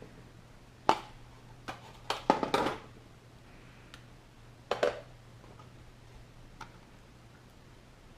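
A few sharp clicks and knocks of a hard plastic part and tools being handled, with a cluster of them about two to three seconds in, over a faint steady low hum.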